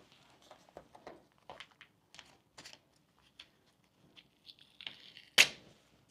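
Adhesive tape being pulled off the roll and torn into short strips: scattered small crackles and rips, a short pull about four and a half seconds in, and one sharp loud tear about five and a half seconds in.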